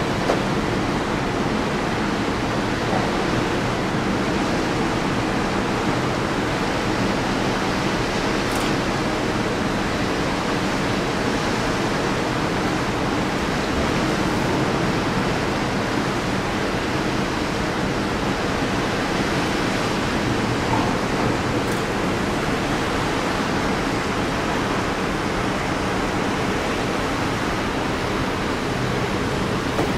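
Steady rushing noise on the deck of a moving ship: wind across the microphone mixed with water rushing past the hull, over a faint steady low hum.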